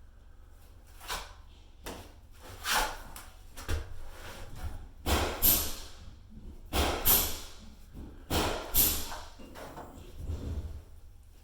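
A 10-inch drywall knife sweeping joint compound across a drywall patch: about eight separate scraping strokes, each around half a second, at an uneven pace.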